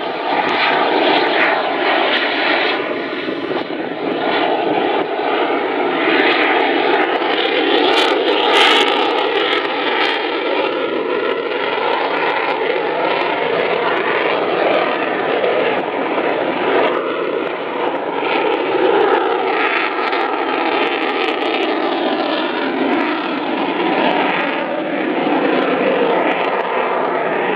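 Eurofighter Typhoon's twin Eurojet EJ200 turbofans at high power with afterburners lit: a continuous loud jet roar that swells and eases a little as the aircraft manoeuvres overhead.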